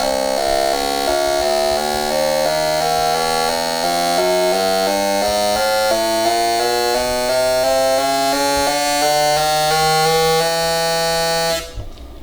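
Synthesizer background music: a quick run of short keyboard-like notes whose pitch climbs gradually, cutting off suddenly shortly before the end.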